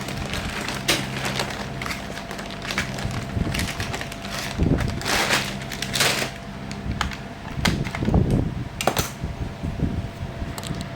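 Repeated clicks, knocks and clatter of computer hardware being handled on a workbench, over a steady low hum that stops about three and a half seconds in.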